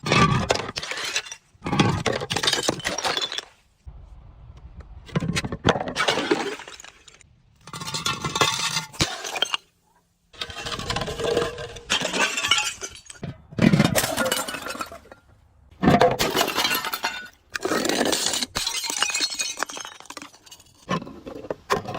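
Glass bottles being crushed and shattering in about a dozen separate crunching bursts, each a second or two long, with clinking glass.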